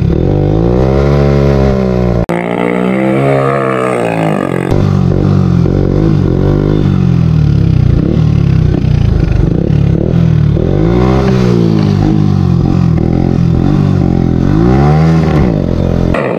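Loud Hero Honda motorcycle single-cylinder engine with an M4 exhaust and no dB killer, revving as it is ridden, its pitch climbing and dropping several times as the throttle is opened and closed.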